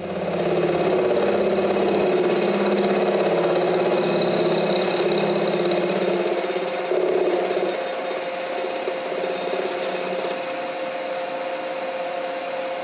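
CNC milling machine spindle running, with an end mill cutting through the MIG weld that fills an old hole in a transmission bellhousing. It is a steady machining sound with several held tones, a little quieter after about eight seconds.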